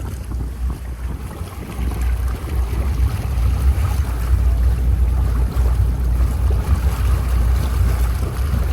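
Astondoa 40 Open sports cruiser under way on its twin Volvo Penta 300 hp engines: a steady low rumble with wind buffeting the microphone and water rushing past, growing louder about two seconds in.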